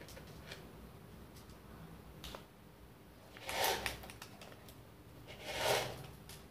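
Faint clicks and two short rustles, about three and a half and five and a half seconds in, from foil seasoning sachets and paper-lidded instant noodle cups being handled.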